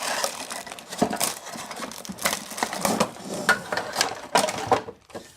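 Hands rummaging in a cardboard box and packaging, pulling out the accessories: a busy run of clicks, taps and rustles that stops near the end.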